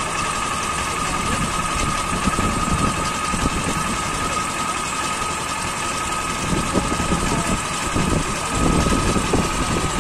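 Small engine on a wheeled concrete-pipe cutting machine running steadily, with a steady high whine over its rumble.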